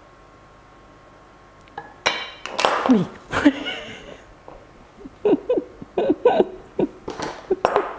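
A loud vocal outburst about two seconds in, then a run of short bursts of laughter.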